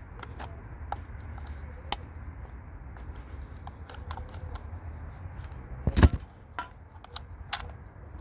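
Scattered small clicks and taps of hand-work on a car's electric door lock mechanism as its cable is worked loose, with one louder knock about six seconds in, over a steady low hum.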